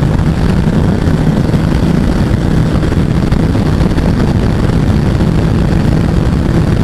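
Bajaj Pulsar 200NS single-cylinder engine running steadily at high revs under full throttle near the bike's top speed, about 140–147 km/h, mixed with wind rush on the microphone.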